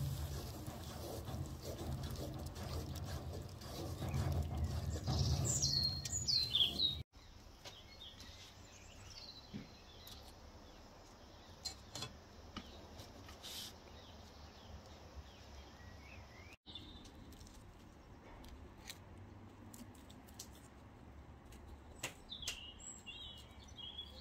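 A wooden spoon stirring and scraping in a pot of frying onions for the first seven seconds, then a sudden drop to quiet outdoor ambience with a few soft clicks. Small birds chirp twice, about six seconds in and near the end.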